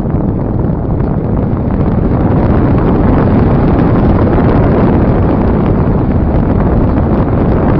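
Steady rush of air over the microphone of a phone riding on a radio-controlled slope glider in flight, with no motor; it grows a little louder about two seconds in.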